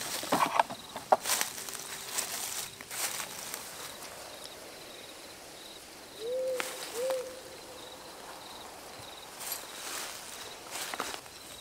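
Rustling and sharp clicks of a horse's saddle, straps and bags being handled, mostly in the first three seconds and again near the end. An owl hoots twice in quick succession about six seconds in, over a faint, steady, evenly pulsing insect chirring.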